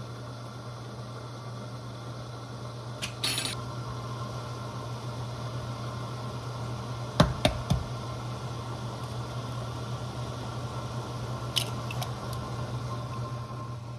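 Steady low electrical hum, with a few sharp clicks and knocks: one about three seconds in, three in quick succession about seven seconds in, and one more near twelve seconds.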